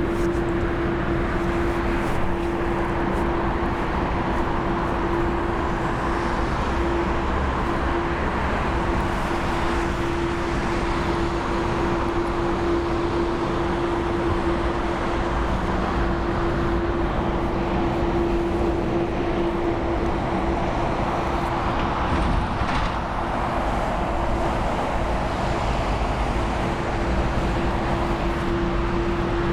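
Steady jet aircraft engine noise at an airport: an even rush with a constant droning hum that holds at one level throughout.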